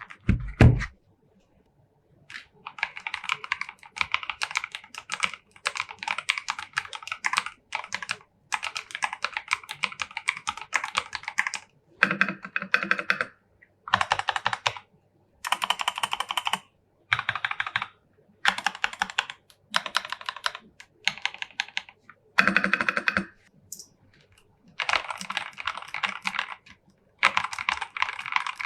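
Rapid typing on a ZIFRIEND KA6406 60% mechanical keyboard: dense runs of key clicks lasting a second or two each, with short pauses between them. A single heavy thump comes right at the start.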